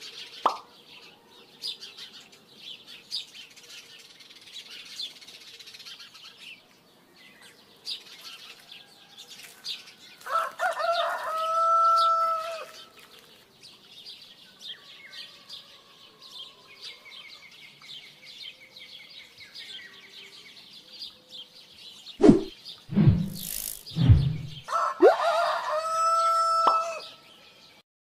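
A rooster crowing twice, each crow about two seconds long, about ten seconds in and again near the end, over a steady high hiss. A few loud thumps come shortly before the second crow.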